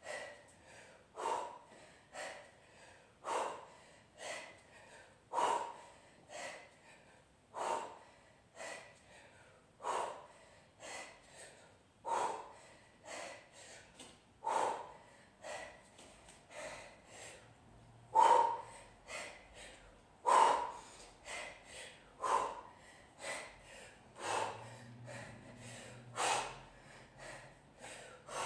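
A woman's sharp, forceful breaths in a steady rhythm during repeated kettlebell snatches, timed with each rep. A louder exhale comes about every two seconds, with a softer breath between.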